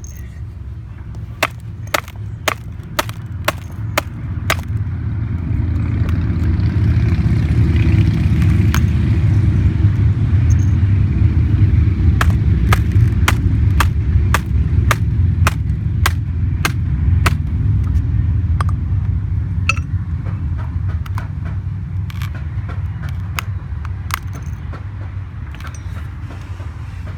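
Sharp, repeated blows on a MacBook's keyboard as a key is smashed out, about two a second at first and then irregular. A low steady rumble builds underneath from about six seconds in.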